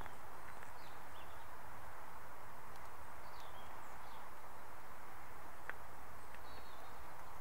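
Outdoor ambience: a steady background hiss and low rumble with a few faint, short bird chirps, and a single sharp click about two-thirds of the way in.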